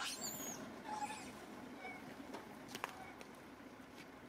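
Quiet outdoor background with a quick burst of high, sweeping bird chirps at the start, then a few faint short calls and a single light click about three seconds in.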